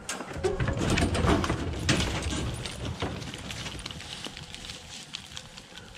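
A pack of deer hounds scrambling out of a pickup's dog box and running off over dry pine straw and leaves: a quick clatter of paws, knocks and rustling. It is loudest in the first three seconds and fades as the dogs spread out.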